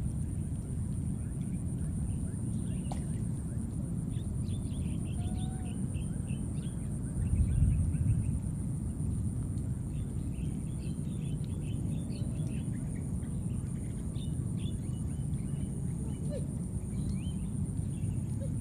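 Outdoor ambience: a steady low rumble with a thin, steady high-pitched whine, and many short high chirps scattered through it. A brief louder low rush comes about seven seconds in.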